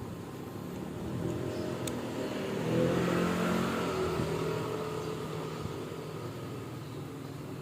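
A motor vehicle's engine going by, growing louder to about three seconds in and then fading away.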